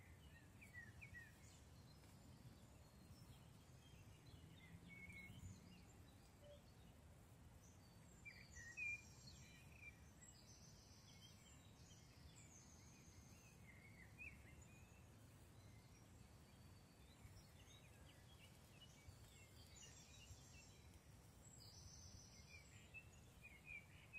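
Faint woodland ambience: scattered small bird chirps and calls, with high buzzy trills twice, near the middle and near the end, over a low steady background rumble.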